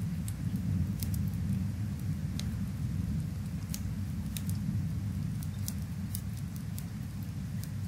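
Rain and fireplace ambience: a steady low rumble of rain, with sharp crackles from a wood fire popping at irregular moments.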